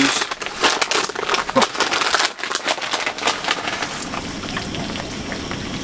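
Plastic bag of grated Parmesan cheese crinkling and rustling as it is opened and shaken over a pot. The crackling thins out into a steady hiss over the last couple of seconds.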